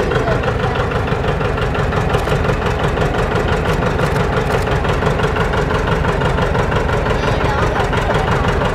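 John Deere two-cylinder tractor engine running slowly and steadily with an even beat, as the tractor creeps onto a seesaw ramp.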